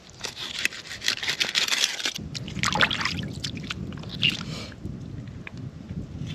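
Repeated scraping and crunching with many sharp clicks; a low rumble joins about two seconds in.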